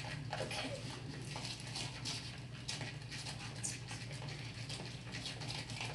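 Irregular soft clicks and scrapes of hands handling the containers as lotion is added to a glue slime mixture.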